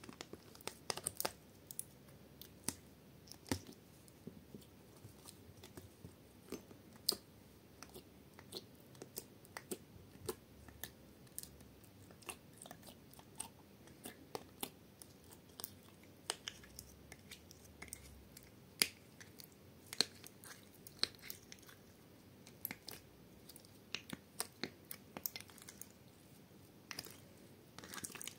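Fingers pressing and pulling clear jelly slime in a plastic compartment tray, making irregular sticky clicks and small pops, several a second.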